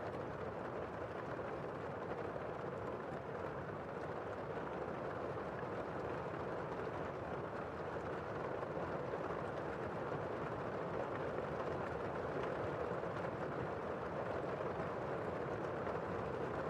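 Heavy rain heard from indoors: a steady, muffled hiss with most of its weight in the low-middle range and little treble.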